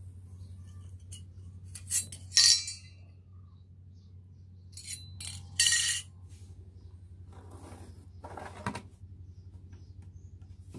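Thin sheet-metal star ornament clinking against a steel plate as it is handled: a few sharp metallic clinks with a short ring, two close together about two seconds in and another near six seconds, then softer handling knocks.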